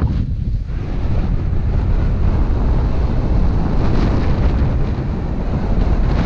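Wind buffeting a camera microphone during a fast snowboard descent, a steady deep rumble, with the hiss of the snowboard sliding and scraping over groomed snow.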